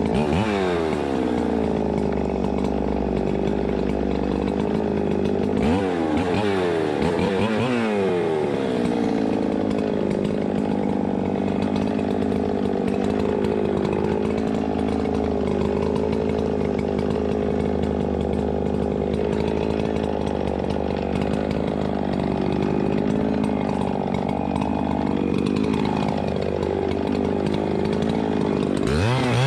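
Two-stroke chainsaw running at high throttle and cutting, its engine note wavering and sagging under load, with quick revs up and down near the start and again about six to eight seconds in, and a sharp rev-up at the very end. The saw is worn and its chain-tensioner adjusting screw has fallen out, so it is being run with no chain adjustment.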